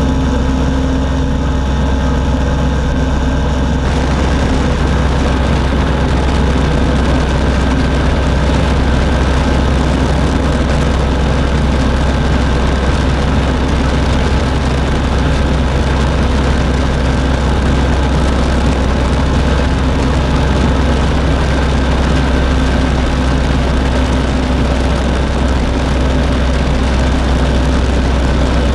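Hirth 3202 two-stroke engine of an ultralight running steadily in flight at reduced throttle, its drone mixed with propeller and wind rush. The engine is missing intermittently because one ignition circuit has lost its coil connection, a broken spade terminal on a coil wire.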